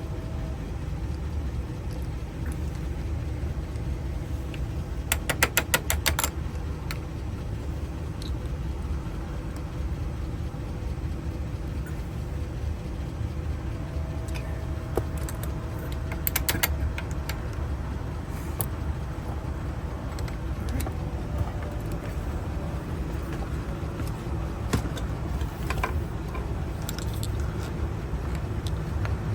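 Small metal tools working on a corroded car trunk lock cylinder: two short runs of rapid light metallic tapping, about five and sixteen seconds in, with scattered single clicks, over a steady low rumble.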